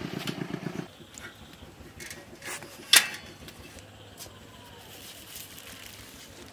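A small engine, a motorcycle's by its sound, running with a fast even beat, stops abruptly about a second in. About three seconds in comes a single sharp click, the loudest sound, as a bicycle is stood and its wire basket handled, with a few lighter clicks around it.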